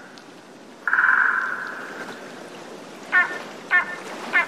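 Spanish imperial eagle calling: one longer call about a second in, then a run of short, sharp calls about every 0.6 s, three of them from around three seconds in.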